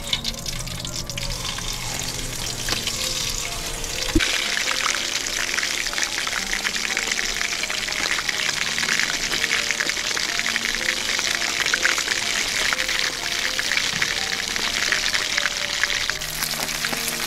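Whole fish frying in hot oil in a wok: a dense, crackling sizzle that gets much louder about four seconds in, over background music.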